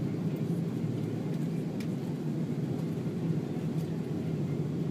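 Steady low rumble of an Airbus A330 airliner heard from inside the passenger cabin as it taxis after landing, engines and cabin air running with a faint steady hum.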